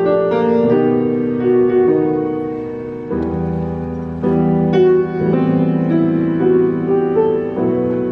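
Solo grand piano improvisation, with sustained chords changing every second or so. A deep bass note comes in about three seconds in, and the chords grow fuller from there.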